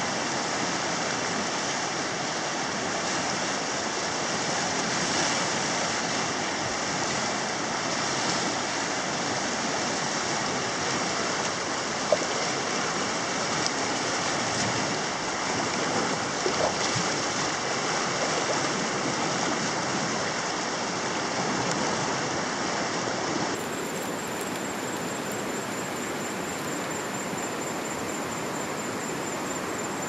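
Fast-flowing river rushing steadily around waders, with one brief sharp click about twelve seconds in. A little over twenty seconds in, the rushing cuts off abruptly and gives way to a quieter steady hiss with a thin, high, steady tone.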